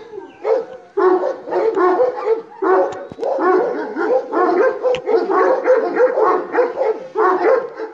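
Kangal (Anatolian shepherd) dog barking aggressively at a drone overhead, in a fast, unbroken run of a few barks a second.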